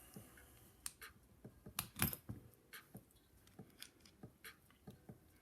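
Quiet metallic clicks and scrapes of a tool working a tight, nearly full-circle C-clip off a padlock's pin-tumbler core, about a dozen separate ticks with the sharpest about two seconds in.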